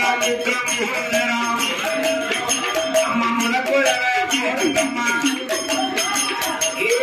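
Villupattu bow-song music: singing over a fast, even rhythm of jingling bells and percussion.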